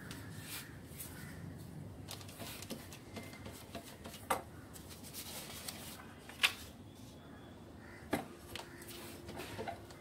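Hand screen printing on a hinged wooden screen frame: paper sheets rustling and light scraping, with a few sharp knocks and clicks as the frame is lifted and set back down.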